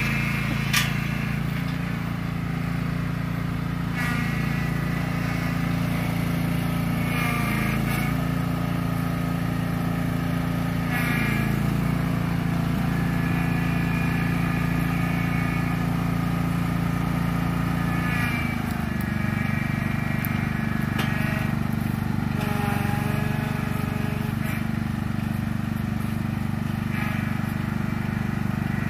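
Lawn tractor's small engine running steadily under load as it drags a log on a skidding arch; its pitch shifts about two-thirds of the way through.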